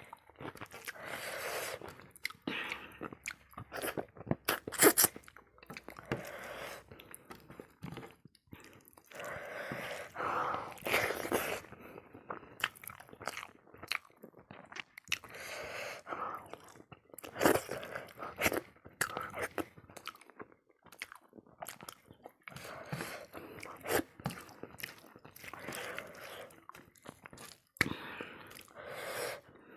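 Close-up chewing and crunching of food: an irregular run of crunches and sharp clicks, the loudest about five seconds in.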